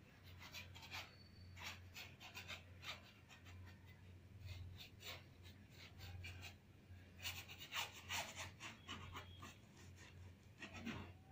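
Flat bristle brush scrubbing and dabbing acrylic paint onto canvas: faint, irregular scratchy strokes, a few louder ones about two-thirds of the way through, over a low steady hum.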